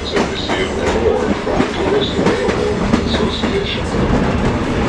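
Passenger train rolling along, heard from aboard a car: a steady rumble with wheels clicking over the rail joints.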